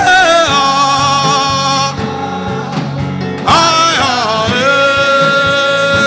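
Gospel worship chant: a voice sings two long phrases of held, wavering notes over a steady beat.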